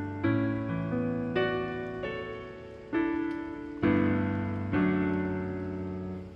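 Background music on piano: slow chords struck about once a second and left to ring and die away.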